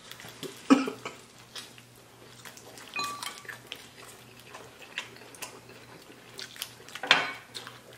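Close-up eating sounds of crispy fried chicken wings: irregular crunching, chewing and wet mouth clicks, with a few louder bites or smacks.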